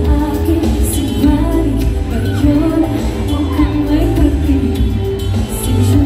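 Live P-pop performance: a female vocal sung into a handheld mic over a bass-heavy backing track, played loud through the stage PA speakers.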